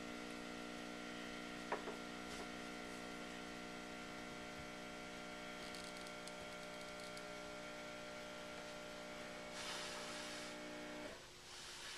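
Steady electrical mains hum that cuts off suddenly near the end, with a faint click about two seconds in and a brief hiss just before the hum stops.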